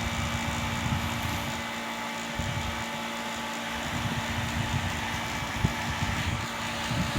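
Small USB portable table fan running: a steady whir with a faint hum, its blades slightly out of balance.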